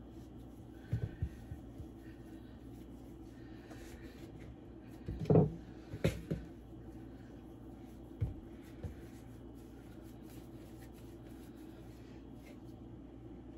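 A few short, dull knocks and thumps on a wooden cutting board as a ball of pie dough and a flour container are set down and handled. The loudest comes about five seconds in, with a couple more just after it, over a steady low hum.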